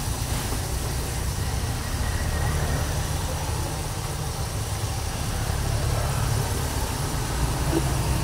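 Hot oil sizzling and bubbling steadily as battered fish pieces deep-fry in a large wok, over a continuous low rumble.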